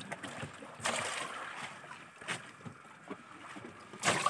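Clear plastic fish-box liner rustling as hands handle it, in irregular bursts with the loudest just before the end, and a single sharp knock about two seconds in.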